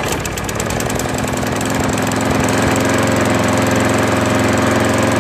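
Craftsman walk-behind lawn mower engine running steadily, its level climbing over the first two seconds and then holding even. It keeps running instead of dying, now that the loose carburetor mounting plate has been bolted down with thread locker.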